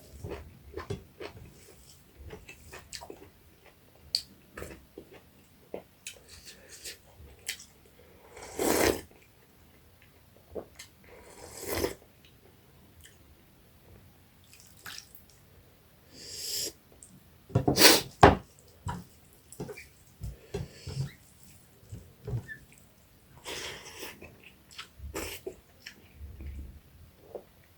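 Close-miked eating sounds: chewing, lip smacks and wet mouth clicks while eating fried small rohu fish with rice and curry, with a few louder, longer slurping bursts spread through.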